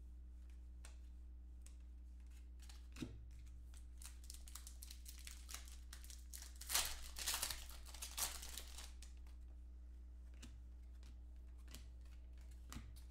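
Foil trading-card packs being torn open and crinkled in the hands, with cards handled, in scattered rustles and small clicks; the loudest crinkling comes about seven seconds in. A steady low hum runs underneath.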